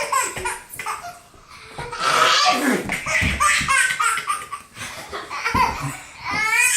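Young children laughing in several high-pitched fits of giggles, stopping and starting again, in response to a sneeze.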